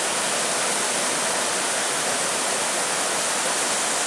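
Rushing water of a creek: a steady, even rush.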